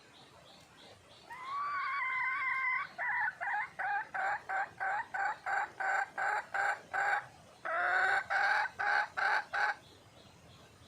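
Red junglefowl hen calling: a long rising note about a second in, then a run of quick clucks about three a second, a second long note and more clucks near the end. It is a hen's call for a male.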